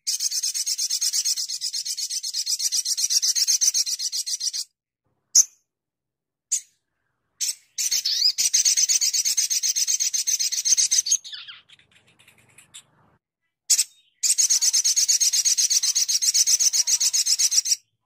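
A sogon (olive-backed sunbird) singing its 'tembakan' song: three long, rapid, rasping high trills, with a few short single notes in the gaps. The middle trill ends in a short falling tail.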